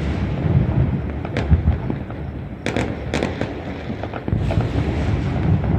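Distant fireworks across a city: a continuous low rumble of bursts, with sharper cracks about a second in and a quick cluster of them near the middle.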